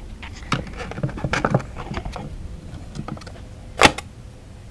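Scattered small clicks and knocks of parts being handled, with one sharper click about four seconds in.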